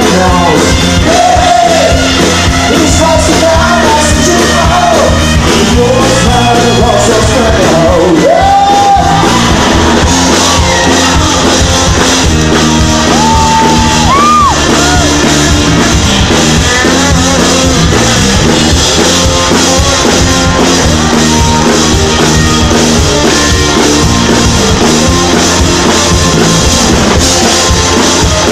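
Live rock band playing loud: electric guitar, bass and drums, with a male singer shouting and singing over it, including a held note that rises about halfway through.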